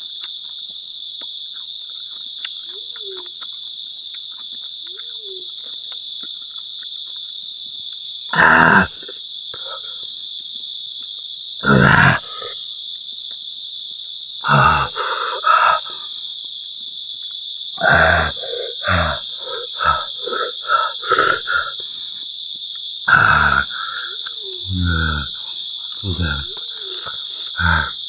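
A constant high-pitched chorus of insects, with short, loud, wordless sounds from a man over it: from about eight seconds in come breathy exhalations and groans, several near the end falling in pitch. They are his reaction to the burn of the chili peppers he is eating.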